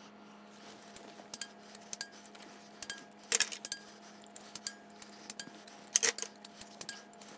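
Hand torque wrench tightening cam cover bolts to 80 inch-pounds: scattered light metallic ratchet clicks, with louder clicks a little over three seconds in and about six seconds in.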